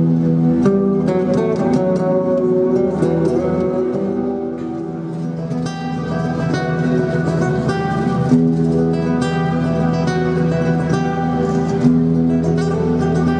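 Classical guitar played solo: held bass notes ring under quick picked and strummed notes. It eases off a little for a couple of seconds in the middle.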